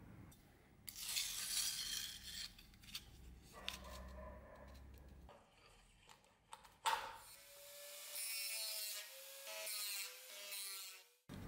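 Rough scraping and rubbing of metal in the first half, then a handheld rotary tool with a small abrasive wheel whining for a few seconds as it grinds and polishes the steel fitting of a dagger handle, its pitch wavering under load, cut off suddenly near the end.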